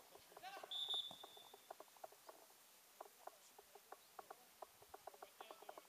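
A referee's whistle blown once, a single shrill blast of just under a second about a second in, right after a brief shout; faint scattered voices and knocks otherwise.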